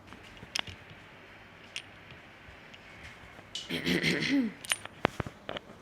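Scattered light clicks and clinks of small tools and parts being handled, with a cluster of sharper clicks near the end and a brief mumbled voice just past the middle.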